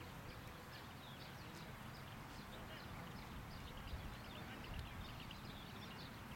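Many small birds chirping, short quick calls overlapping one another, over a low steady rumble.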